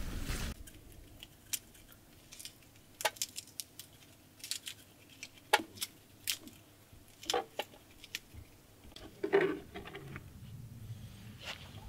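Scattered light clicks, taps and clinks of objects being handled, irregularly spaced, with a longer, louder rustle or scrape toward the end.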